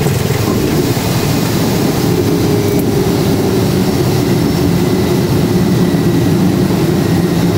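Quest Kodiak 100's Pratt & Whitney PT6A turboprop engine and propeller running steadily, heard from inside the cockpit during the landing roll.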